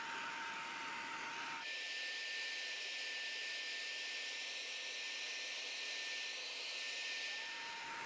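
Electric paint spray gun running: a steady blower hiss with a thin whine. The whine jumps higher about one and a half seconds in, the low rumble drops away, and both return near the end.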